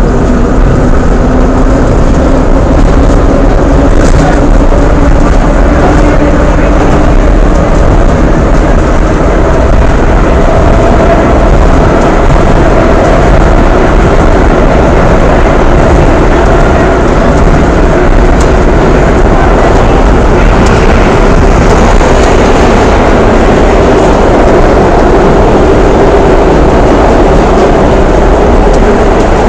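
New York City subway train running along the track, heard from inside the car: a loud, steady running noise with a droning motor whine. One sharp click about four seconds in.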